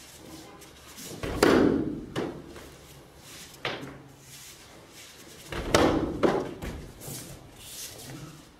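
Bodies hitting foam mats as an aikido partner is thrown and falls: two heavy thuds, one about a second and a half in and one near six seconds, with lighter footfalls and the rustle of gi and hakama between.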